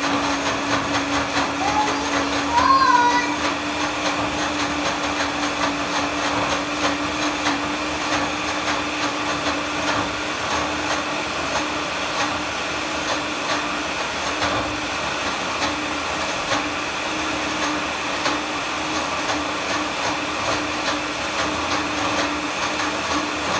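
Countertop electric blender running steadily, its motor hum and the whir of the blending jar holding one even pitch throughout.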